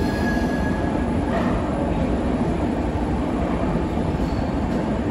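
Red-and-grey LHB passenger coaches rolling past along a station platform: a steady rumble of wheels on the rails. A thin, faint wheel squeal fades out within the first half second.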